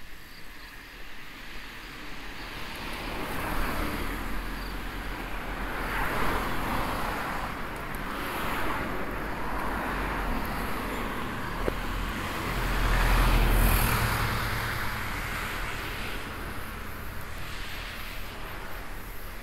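Outdoor background noise that swells and fades in waves, with a low rumble that grows loudest about two-thirds of the way through and then eases off.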